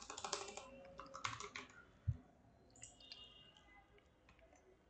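Faint typing on a computer keyboard: a quick run of keystrokes over the first couple of seconds, thinning out after that.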